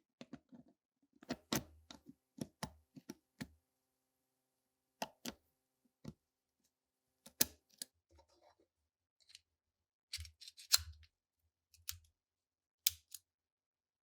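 Sharp metallic clicks and clacks of a pistol's steel parts being handled and fitted together, coming irregularly, some with a dull knock beneath.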